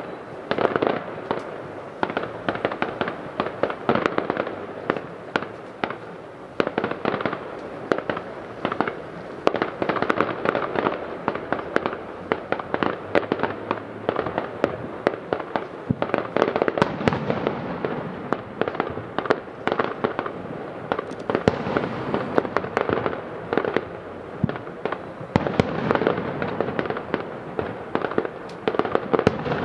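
Aerial fireworks display heard from about 700 m away: a continuous, rapid string of bangs and crackling reports, several per second, without a break.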